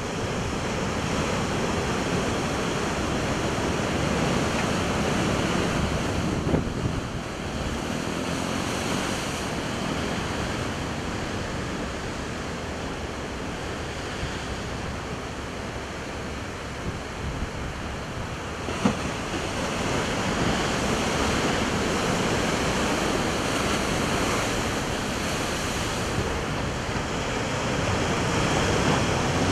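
Large ocean waves breaking and washing over shoreline rocks below a seawall, a steady rush of surf and churning foam, with wind on the microphone. Two brief sharp knocks stand out, the louder one about two-thirds of the way in.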